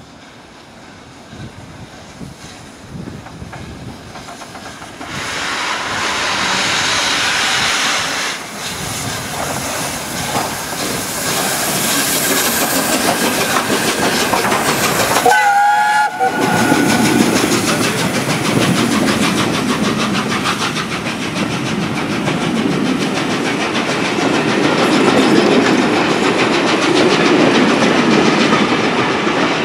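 The Peppercorn A1 Pacific steam locomotive Tornado approaches and passes at speed, its rush of noise rising over the first several seconds. About halfway through it gives a brief whistle, then its train of coaches runs by loudly with a rapid clickety-clack of wheels over the rail joints.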